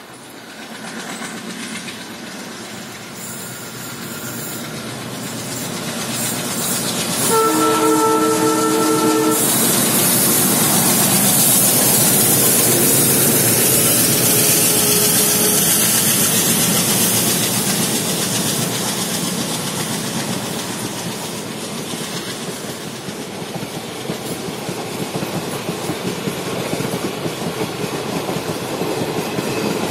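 Twin ALCO diesel locomotives approaching at speed, growing louder, and sounding a two-second multi-tone horn blast about seven seconds in. The locomotives then pass loudly, and express coaches roll by with a steady clickety-clack of wheels over rail joints.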